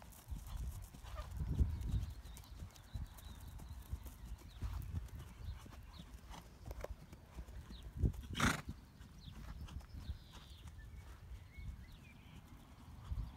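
A horse's hooves thudding on grass turf as it canters under a rider, in a run of repeated low thuds. About eight seconds in there is a brief, louder rush of noise lasting about half a second.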